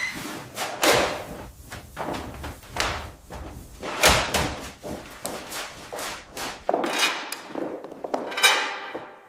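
Irregular knocks, thuds and scraping clatter of debris being handled and moved, with a short metallic ping right at the start.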